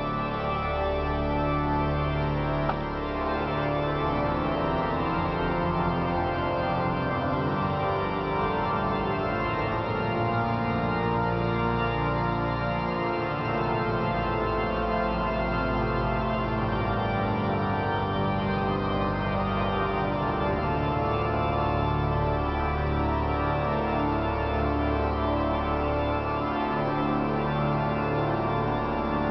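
Pipe organ playing slow, sustained chords, with the bass notes changing every several seconds, inside a huge basilica.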